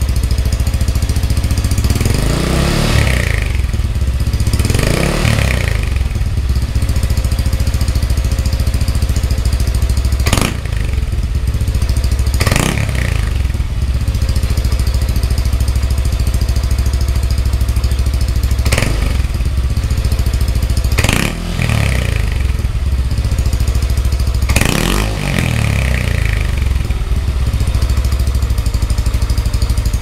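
Yamaha NMAX 155 scooter's single-cylinder engine running through an aftermarket OPP Podium power pipe exhaust. It idles steadily and is revved several times, the note rising quickly and falling back to idle each time.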